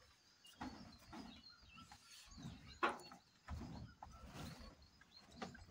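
Soft, uneven footsteps and handling thuds with a sharp knock about three seconds in, under faint bird chirps.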